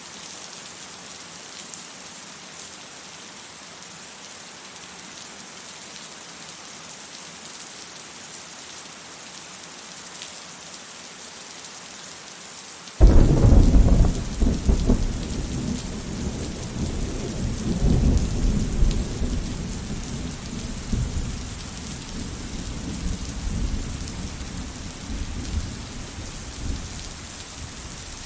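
Steady rain hissing, then about halfway through a sudden crack of thunder that rolls on as a low, uneven rumble, slowly dying away over the rest of the stretch.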